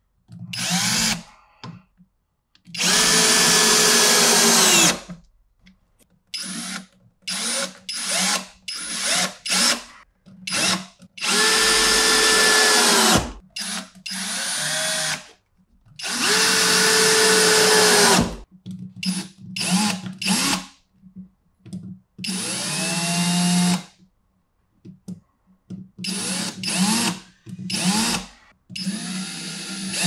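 Battery-powered drill driving woodscrews into plywood and 2x4 lumber: a stop-start series of trigger pulls, four longer runs of about two seconds among many short bursts. The motor's whine drops in pitch near the end of the longer runs as each screw drives home.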